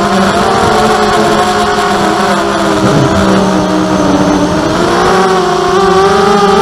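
Brushless motors and propellers of a 250-size FPV racing quadcopter whining steadily. The pitch dips between about three and four and a half seconds in and climbs again around five seconds, following the throttle.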